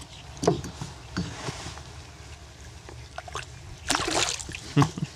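A black drum released over the side of a kayak: one loud splash about four seconds in as the fish hits the water and swims off, with water sloshing.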